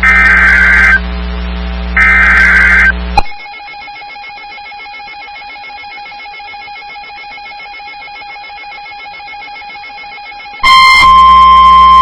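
NOAA Weather Radio Emergency Alert System activation. The last two of three short, loud digital SAME header data bursts, each about a second long with a second's pause between, are followed by a quieter stretch with a faint steady tone. About eleven seconds in, the loud, steady single-pitch warning alarm tone starts, signalling that a new warning is about to be broadcast.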